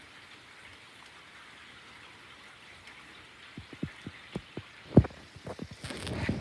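Steady rain falling. A little past halfway a run of irregular dull taps starts and grows more frequent, with the loudest about five seconds in.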